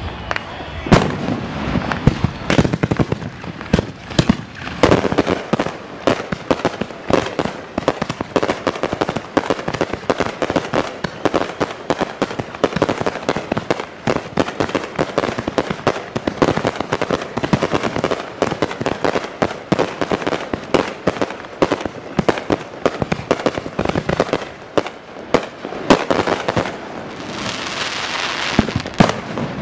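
Aerial fireworks display: shells bursting in quick succession, a dense run of crackling pops with louder bangs scattered through it, and a rushing hiss near the end.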